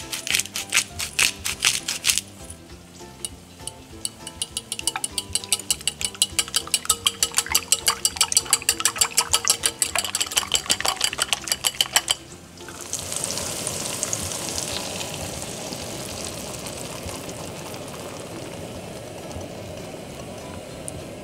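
A pepper mill grinding briefly over raw eggs, then the eggs beaten in a glass bowl with quick, even clicks about five a second. About two-thirds of the way through, the beaten egg is poured into a hot pan of butter, oil and tomato slices and sizzles, loud at first and then settling down.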